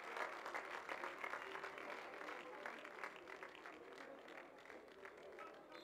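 Spectators clapping and applauding after a point, the applause dying away gradually.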